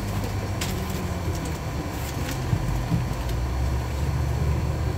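Inside a LiAZ-6213.22 articulated city bus under way: a steady engine hum and road noise. A few sharp rattling clicks come about half a second and two seconds in, and the engine note settles lower about three seconds in.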